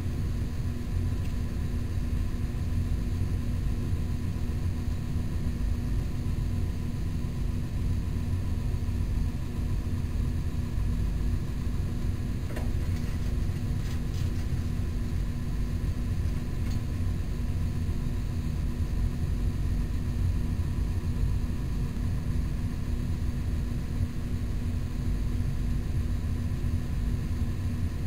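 Steady low hum, even in level throughout, with a constant tone in it; two faint clicks about halfway through.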